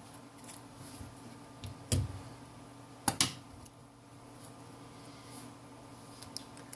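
Small clicks and taps of hand tools and parts during a smartphone teardown: a knock about two seconds in, two sharp clicks about a second later, then a few faint ticks near the end, over a low steady hum.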